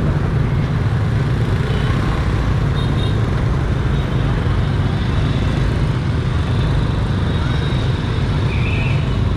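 Steady, loud low outdoor rumble, with faint voices in the background.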